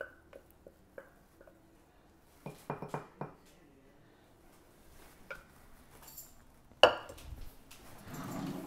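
A wooden spoon tapping and scraping against ceramic ramekins as thick steel-cut oatmeal is spooned in: light knocks at first, a cluster of clatters around three seconds in, then one loud clank of cookware near the end.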